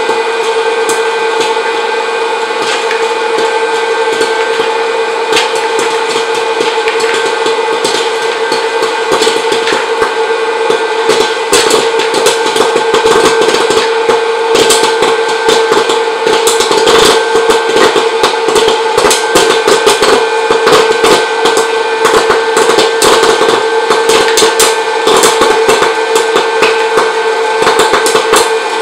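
Hot-air popcorn popper's fan motor running with a steady hum while kernels pop inside it. The pops are sparse at first and come thick and fast from about ten seconds in.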